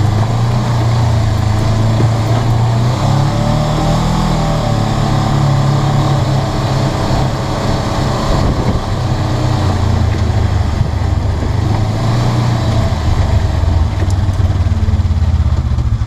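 Polaris RZR 900 side-by-side's twin-cylinder engine running under way on a dirt trail, its pitch rising and falling with the throttle: climbing a few seconds in, dipping about halfway, and climbing again near the end.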